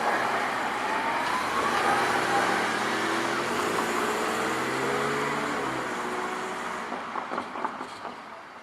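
A vehicle passing close by, its running noise carrying a rising whine, then fading away over the last second or two.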